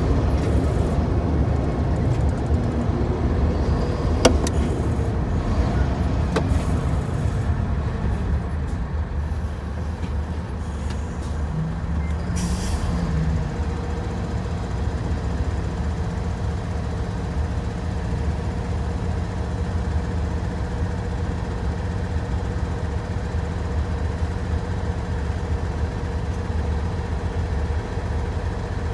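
Hino Profia heavy truck's diesel engine running as the truck slows to a stop, then idling steadily. There is a single sharp knock about four seconds in, and a short hiss of air from the air-brake system about twelve seconds in, as the truck comes to rest.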